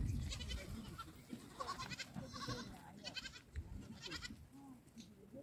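Goats in a herd bleating, about five calls from different animals over the first four seconds, with a brief low rumble at the very start.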